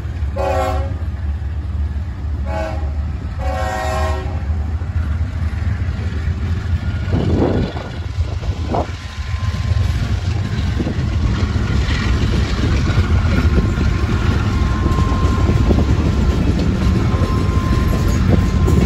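Norfolk Southern diesel freight locomotives sounding their horn in three short blasts over the first four seconds, then rumbling past, followed by the rolling clatter of an empty coal train's hopper cars with a faint steady wheel squeal near the end.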